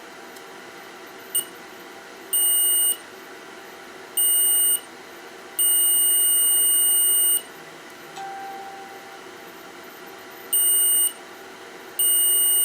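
Multimeter continuity-test beeps: five high-pitched beeps, the middle one held for about two seconds, with a short blip before them. Each beep signals an electrical connection between the probed points on the Dreamcast circuit board.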